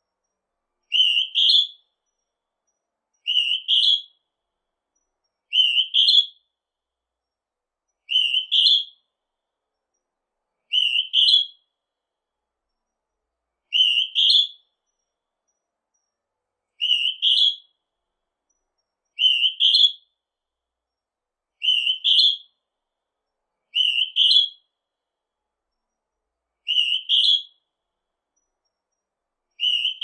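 Northern hawk-cuckoo calling: a repeated two-note whistle, the second note higher than the first, given about every two and a half seconds with silence between calls.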